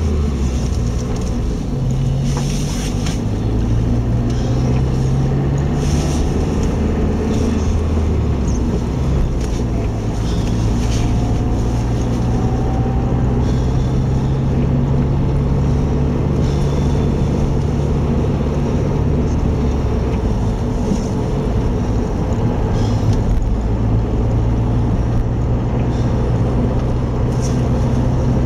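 Car engine and tyre noise heard from inside a moving car, steady throughout, with the engine note stepping up and down a few times as the speed changes.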